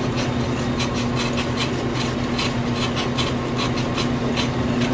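Ammco brake lathe running with a steady hum while its twin cutting bits scrape across the faces of a spinning brake rotor, an uneven scratchy scraping several times a second on top of the hum: the rotor being machined true.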